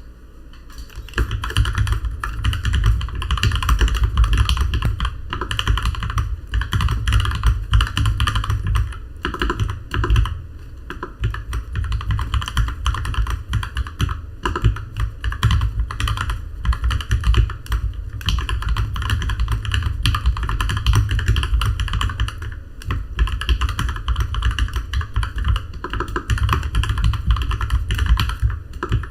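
Continuous fast typing on a custom GK61 60% mechanical keyboard, dense key strokes starting about a second in, with a deep low end under each stroke.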